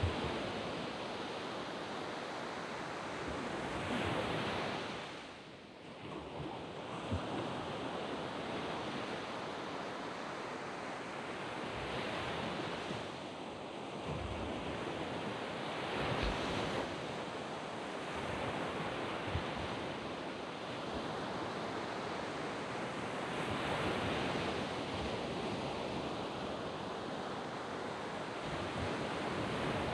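Waves breaking and washing on a sand beach, a continuous surf wash that swells and eases every few seconds, with some wind noise on the microphone.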